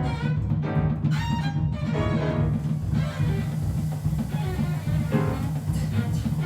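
Free-improvised ensemble music led by bowed strings: a sustained low tone underneath, with higher pitched lines sliding up and down over it.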